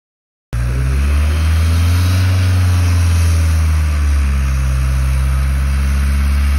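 A motor vehicle's engine running loud and close after half a second of dead silence, its pitch lifting slightly and settling back a couple of seconds in.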